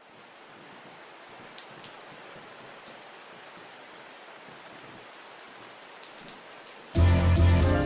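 Steady rain-like noise fading in, with a few sharper single drops. About seven seconds in, loud music with a deep bass line cuts in.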